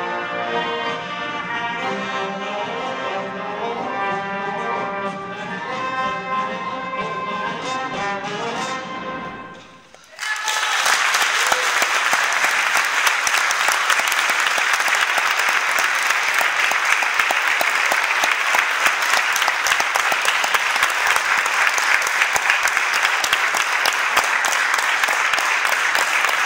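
A youth concert band of saxophones, clarinets and brass plays its closing bars, the final chord dying away about ten seconds in. An audience then breaks into steady applause.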